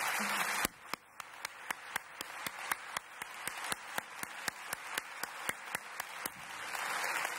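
An audience applauding breaks into clapping in unison, a steady beat of about four claps a second. Near the end it goes back to ordinary, scattered applause.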